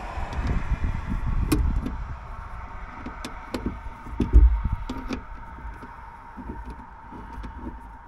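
Sharp metallic clicks and taps from a hex key working at a truck toolbox lid's latch mechanism, with a dull thump about four and a half seconds in, over a steady low rumble.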